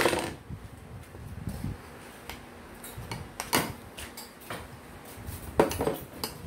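Ice-cream scoop and metal spoon clinking and scraping against plastic tubs and a drinking glass as ice cream is dished out: a handful of sharp clinks, the loudest at the start and about two-thirds of the way through.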